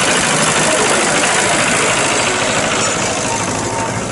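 Engine of a small two-foot-gauge internal-combustion locomotive running as it passes close by, getting a little quieter near the end.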